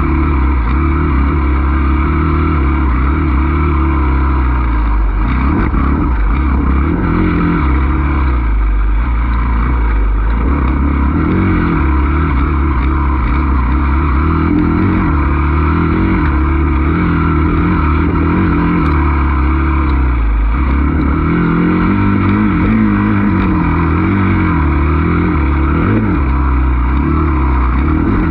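Enduro dirt bike engine heard close up from the rider's position. Its pitch rises and falls over and over as the throttle is opened and closed.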